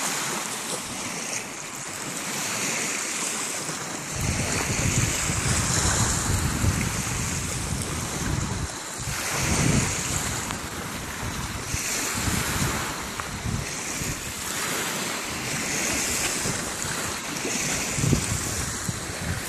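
Small waves washing onto a sandy beach, swelling and falling every couple of seconds. Wind buffets the microphone in low gusts from a few seconds in.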